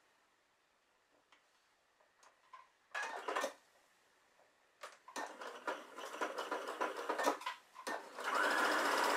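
Computerized sewing machine stitching a fabric strip. A short burst of stitches comes about three seconds in, then stop-start runs of fast stitching, and near the end it settles into steady, continuous sewing at speed, the loudest part.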